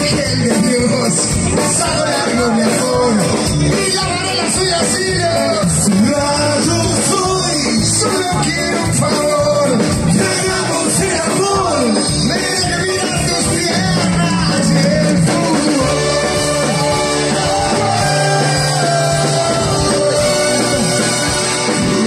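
Live Latin band playing through a loud PA system, with a lead voice singing over guitars, bass and drums, heard from among the crowd in front of the stage.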